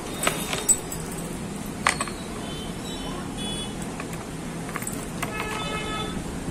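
Small sharp metal clicks and taps from hands handling the parts of a disassembled car AC blower motor, three louder ones in the first two seconds, over a steady low hum.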